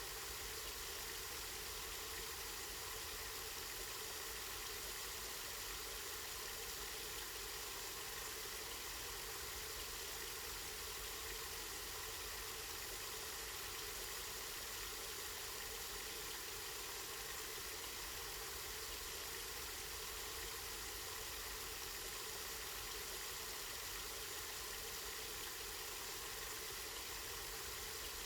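Water from a spring flowing and splashing steadily, a constant even rush with no breaks.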